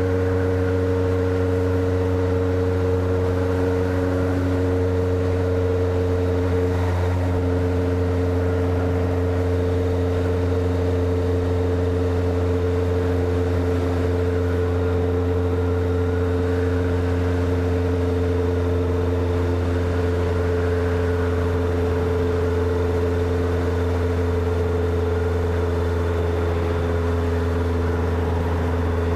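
Honda CB motorcycle engine and exhaust running at a steady, unchanging engine speed, over a strong low rumble.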